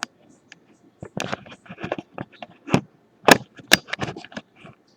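Irregular small metal clicks and taps from handling the parts of a disassembled padlock: pins and lock pieces being picked up and set down, with two sharper clicks about three and a half seconds in.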